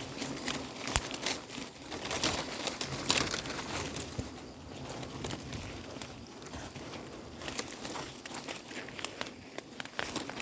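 Irregular crackling and rustling, like dry leaves and brush being trodden or handled, with many sharp clicks in the first four seconds and fewer after.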